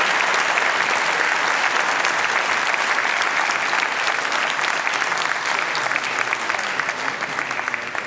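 A large audience applauding steadily, the clapping easing off near the end with single claps standing out more.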